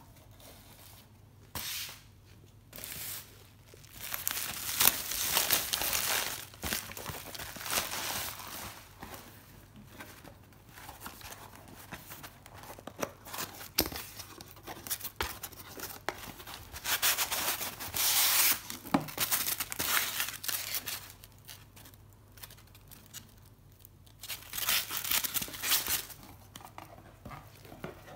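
Packaging being torn open and crinkled by hand in irregular bursts, with louder stretches about four seconds in, around the middle and near the end.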